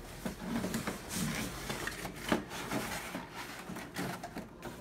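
Corrugated cardboard display trays being handled and fitted together: scraping, rustling and tapping of cardboard on cardboard, with one sharper knock a little before halfway through.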